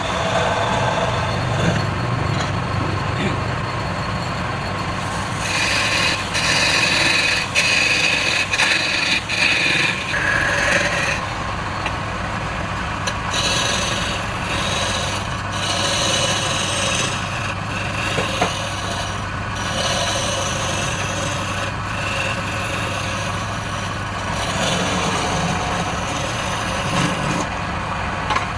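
Wood lathe running steadily, with several stretches of rasping as the spinning wood is worked.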